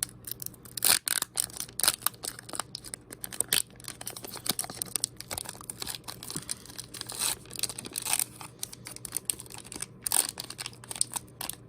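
Foil trading-card booster pack wrapper crinkling and tearing as it is worked open, a dense, uneven run of crackles.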